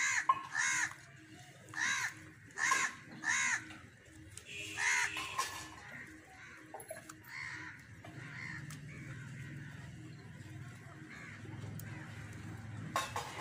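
A crow cawing: a run of about seven short caws in the first five seconds or so, then fainter calls. A sharp knock near the end.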